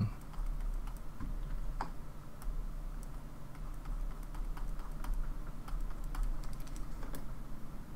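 Computer keyboard keys pressed now and then, including Ctrl+Z undo shortcuts: light, scattered clicks over a low steady hum.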